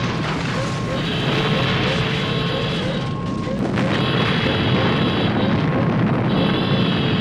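Vintage film sound effects of a base being destroyed: a continuous heavy explosion rumble, layered with a high electronic tone that sounds on and off every couple of seconds and a short rising chirp repeating about twice a second.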